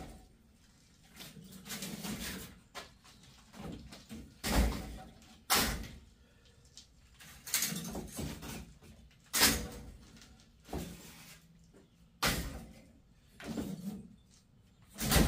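Pieces of scrap metal being handled and dropped, a string of irregular clanks and thumps a second or two apart.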